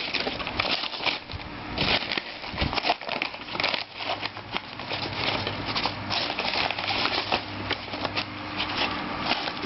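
Packaging of a holographic sight being handled and opened by hand: an irregular run of rustling, crinkling and small clicks and taps.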